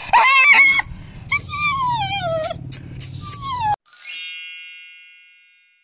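A Rottweiler crying in about three long, high whines that fall in pitch, while held down and scared of an injection. The crying cuts off just under four seconds in, and a bright chime rings and fades away.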